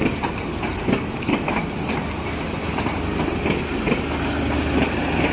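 Bangladesh Railway passenger coaches rolling past a platform, a steady rumble with irregular sharp clacks from the wheels.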